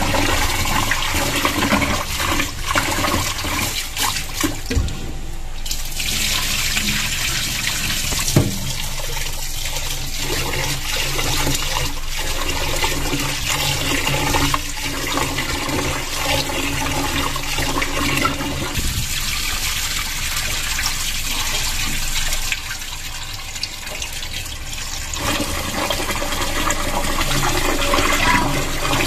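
Tap water pouring into a metal pot of basmati rice while a hand swishes and rubs the grains through the water to wash them, with splashing and sloshing.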